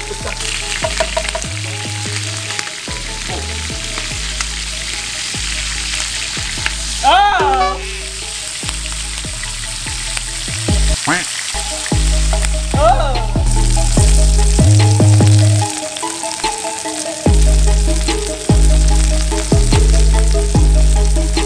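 Baby rats frying in hot oil in a nonstick pan: a steady sizzle. Background music with a deep bass line that changes note every second or so plays over it, with two brief sliding, voice-like tones.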